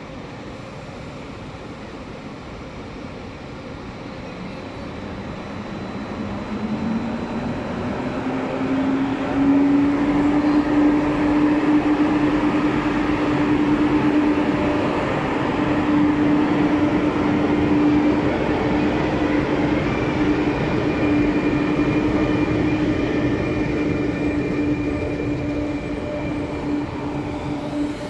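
ÖBB Class 1116 Taurus electric locomotive pulling a passenger train away from the platform. Its traction converters give a whine that rises in pitch from about five seconds in and then holds one steady tone, over the growing noise of the train as it picks up speed and the coaches roll past.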